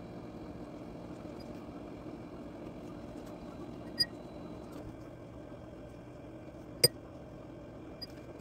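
Steady low room hum with two sharp clicks, a small one about four seconds in and a louder one just before seven seconds.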